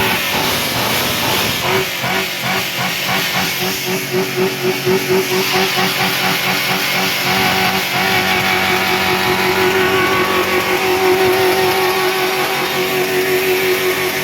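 Chevy engine running steadily, its note pulsing in a quick, even beat for the first several seconds before settling into a steady drone.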